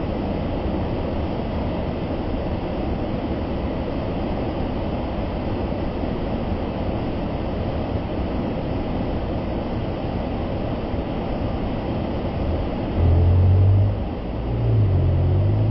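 Large waterfall's steady rush of falling water, a deep even roar. Two louder, very low rumbles come in near the end, about a second apart.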